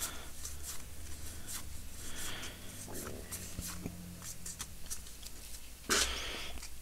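Trading cards and a foil booster pack being handled: light rustling and small scattered clicks, with a louder brief rustle about six seconds in, over a faint steady low hum.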